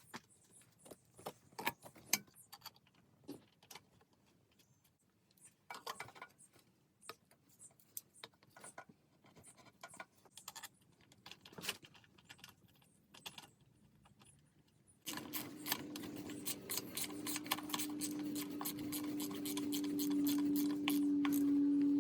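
Scattered light metallic clinks, taps and knocks of a motorcycle radiator and its fittings being handled and mounted. About fifteen seconds in, a louder steady hum of a few held tones with rapid ticking starts suddenly and runs on.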